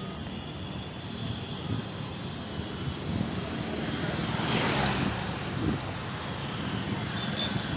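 City road traffic heard while moving along a street: a steady rumble of engines and tyres, with a rush of noise that swells and fades just past the middle.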